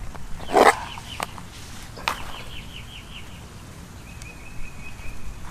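Outer bract being snapped and peeled off a banana blossom: a crisp crack about half a second in and a lighter one near two seconds. In the background a bird calls: a quick run of high chirps, then a single held high note.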